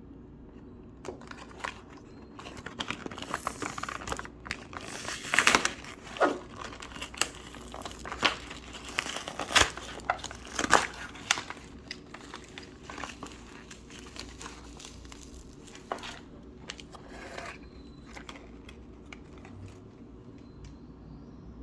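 Play-Doh slime being handled by hand, with irregular crinkling and crackling noises that start about a second in, are busiest in the middle and thin out near the end.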